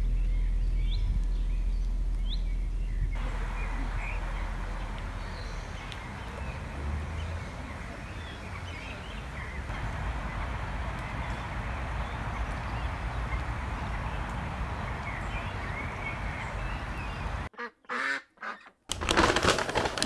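Ducks or geese calling over a steady outdoor noise, with a few short bird chirps in the first seconds. Near the end the sound drops out briefly and gives way to loud knocks.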